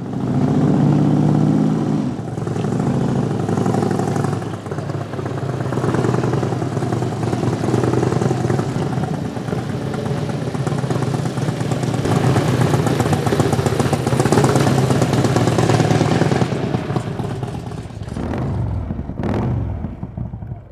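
A motor vehicle's engine running, its pitch rising and falling as it revs, then dying away over the last few seconds.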